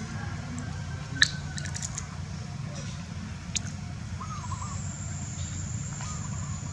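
Outdoor background of a steady low rumble with a few short bird chirps, two sharp clicks about one and three and a half seconds in, and a thin high whine from about four seconds in.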